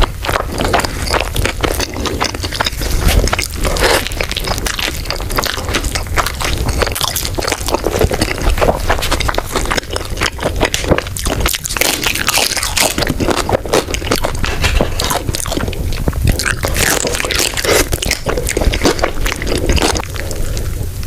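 Close-miked eating sounds: continuous irregular biting, crunching and chewing of food.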